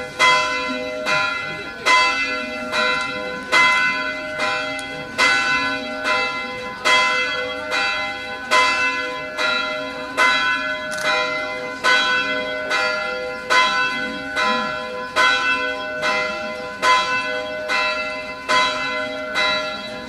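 Church bells ringing in the tower, strokes coming a little faster than one a second, each note ringing on into the next.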